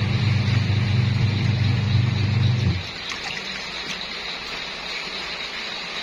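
Top-loading washing machine in its wash cycle: the motor hums steadily as the clothes churn in the water, then stops a little under three seconds in, leaving a fainter swish of water.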